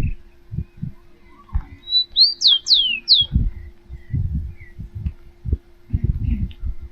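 Wind buffeting the microphone in uneven gusts. A bird calls about two seconds in with a quick run of about five sharp, high notes that sweep up and down.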